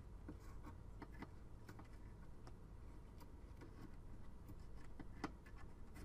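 Faint, scattered light clicks and taps as a RAM module is handled and lowered into a motherboard's memory slot, over a low room hum.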